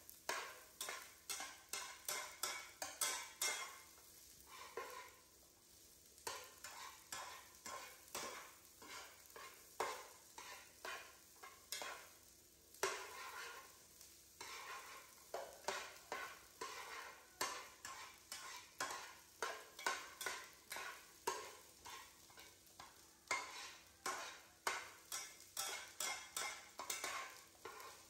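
Metal spatula scraping and stirring corn kernels frying in butter in a frying pan, in repeated strokes about two a second with a couple of short pauses, over a light frying sizzle.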